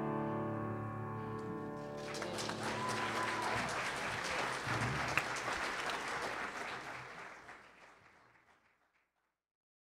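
The last piano chord of the song dies away, then an audience applauds, the applause fading out about eight seconds in.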